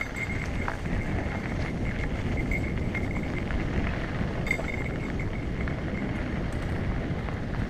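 Mountain bike rolling fast down a dirt trail: tyre noise on packed dirt and wind buffeting a helmet-mounted GoPro, with small knocks and rattles from the bike and a thin, steady high whine.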